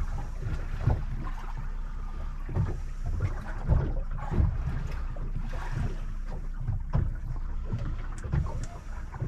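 Small fishing boat's outboard motor running steadily under way, with the hull thudding and slapping over the chop at irregular intervals and water splashing.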